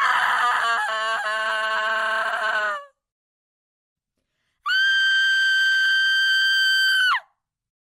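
Two women's horror screams. The first lasts about three seconds with a wavering pitch that sags toward its end; after a short silence a second, higher scream is held at one steady pitch for about two and a half seconds and drops sharply as it cuts off.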